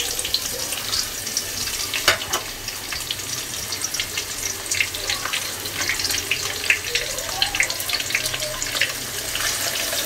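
Chopped onions frying in hot mustard oil in a steel kadai: a steady sizzle with frequent small crackles, the wooden spatula stirring them.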